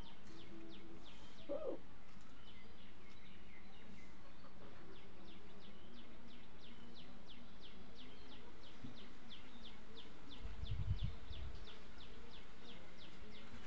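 A small bird's quick, high chirps, each sliding downward, repeating about three times a second. A brief low rumble comes about eleven seconds in.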